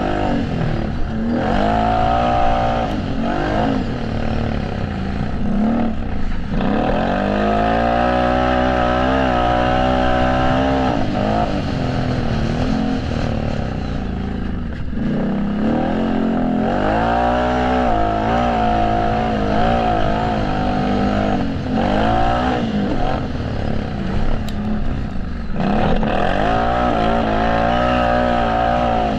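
Racing quad engine revving hard, its pitch climbing and falling again and again as the throttle is opened and shut through the track, with breaks every few seconds.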